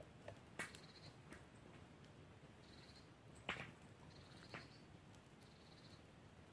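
Small wood campfire crackling quietly, with a few sharp pops, the loudest about three and a half seconds in. Short high trills repeat every second or two behind it.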